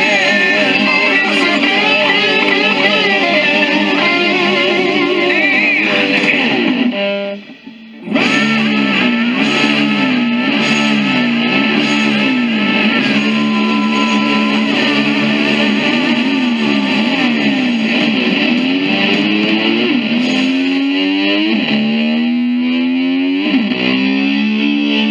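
Hard rock recording led by distorted electric slide guitar, its notes gliding up and down in pitch, with a brief drop-out about seven seconds in.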